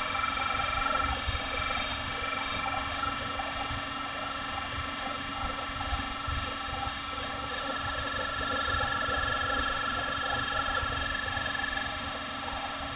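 Computer making a steady whine of several high tones over a low hum; one tone grows stronger about eight seconds in and fades again near the end. The cause of the noise is unknown, and the owner does not believe it is the fans.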